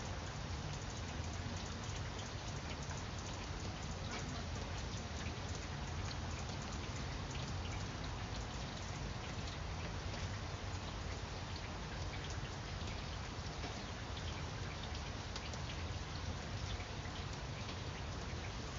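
Steady rain falling on leaves: an even hiss with many separate drop ticks scattered through it.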